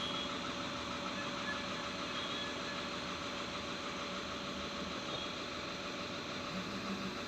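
Skoda Rapid diesel engine idling steadily while held for injector minimum-quantity adaptation. The engine has a slight knock after one of its injectors was replaced.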